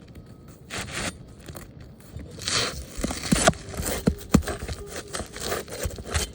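Asphalt roof shingles scraping and crackling as they are worked by hand, in uneven strokes with a few sharp clicks. The shingle is brittle.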